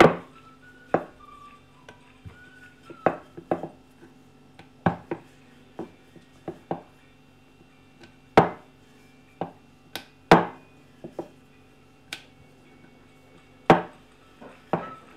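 Wooden rolling pin knocking and clacking against a wooden rolling board as small balls of maida dough are rolled out into thin discs. The knocks come irregularly, sometimes two or three close together, and the loudest fall a little past the middle.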